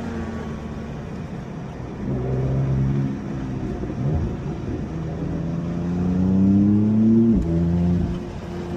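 Car engine accelerating hard, its pitch climbing through the revs and dropping suddenly at gear changes, the clearest a long climb that falls away about seven seconds in.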